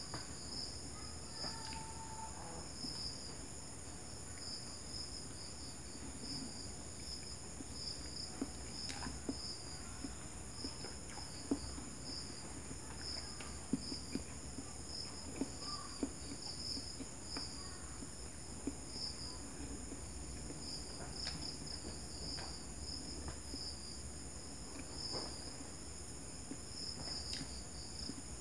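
Crickets chirping in a steady pulsing chorus over a constant high insect drone, with faint clicks of chewing and handling food scattered through.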